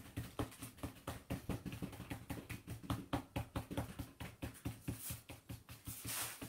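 Paint being dabbed onto paper in quick repeated taps, several a second, as colour is blended from light into dark. A short rustling hiss comes near the end.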